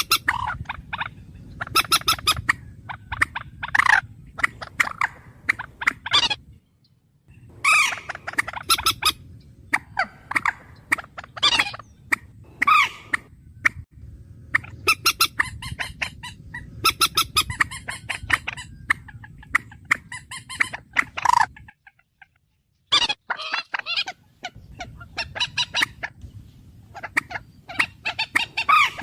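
Recorded bird calls: rapid runs of short, harsh repeated notes, broken by a few abrupt stretches of silence.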